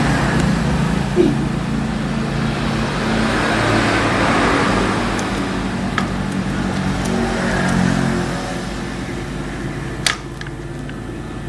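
Steady mechanical hum with a rushing noise that swells and fades, and a few light clicks, the loudest about ten seconds in.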